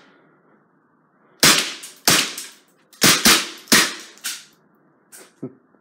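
Luger BB pistol firing about five shots in quick succession at a laptop, starting about a second and a half in.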